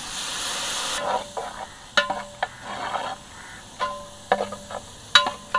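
Water poured into a large metal pot of hot frying masala, hissing for about a second. Then a long metal ladle scrapes and knocks against the pot as the masala is stirred, each knock making the pot ring briefly.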